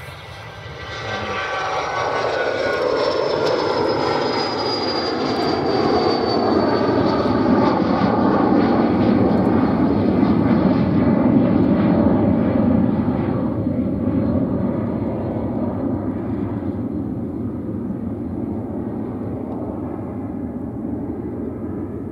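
Learjet 45 business jet with its twin Honeywell TFE731 turbofans at takeoff power, climbing out past and away. A high whine falls slowly in pitch as it passes, and the engine noise builds to its loudest about halfway through, then fades to a lower rumble as the jet climbs away.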